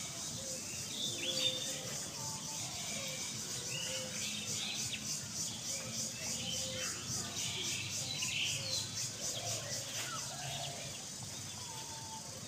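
Outdoor ambience of birds chirping here and there, with a faint, evenly pulsing high hiss.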